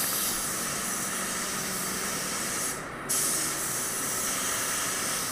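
Gravity-feed spray gun spraying primer onto a plastic bumper: a steady hiss of atomising air that cuts out briefly about three seconds in, then starts again.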